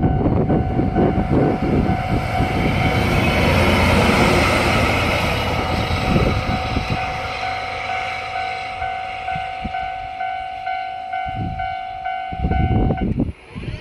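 DE15 diesel-hydraulic locomotive with Russell snowplow passing over a level crossing: a heavy rumble with wheels clacking over the rail joints, loudest a few seconds in and then slowly fading. The crossing's warning alarm rings throughout, a steady tone with a pulsing beep repeating about twice a second. Both stop suddenly near the end.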